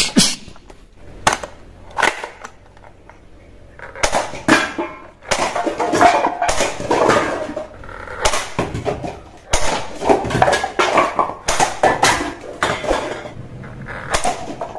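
Irregular clattering and knocking of hard objects: a few single sharp clicks at first, then from about four seconds in a dense run of knocks and rattles with short breaks.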